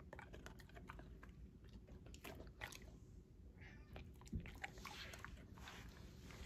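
A dog biting and crunching small baked dog biscuits taken from a hand: a scatter of faint crunches and clicks.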